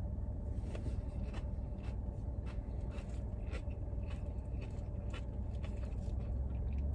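Chewing a crisp, breaded onion ring: faint, irregular crunching clicks, over a steady low hum in a parked car's cabin.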